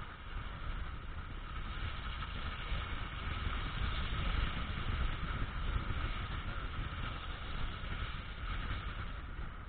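Car driving along a snow-covered road, heard from inside the cabin: a steady low rumble of engine and tyres with a constant hiss.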